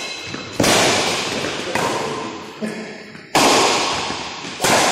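Badminton rackets striking the shuttlecock in a rally: four sharp hits a second or so apart, each ringing on in the echoing hall.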